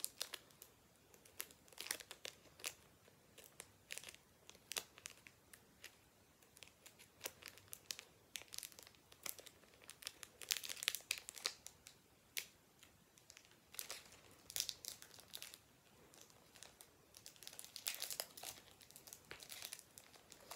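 Foil booster pack wrapper crinkling and tearing in irregular bursts as it is worked open by hand.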